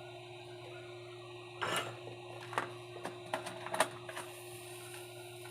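Small metal tools clicking and scraping against a phone circuit board several times, over a steady electrical hum.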